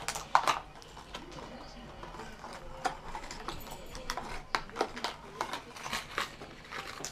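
Fishing-lure package being handled: irregular plastic crinkles, taps and clicks, several a second.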